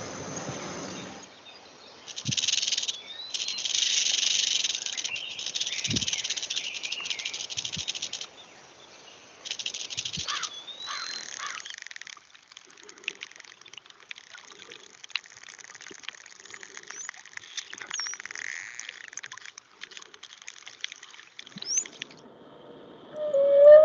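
Recorded animal calls: bursts of high-pitched chirping and trilling with a few short rising whistles, like birds, frogs or insects, changing abruptly between several short segments.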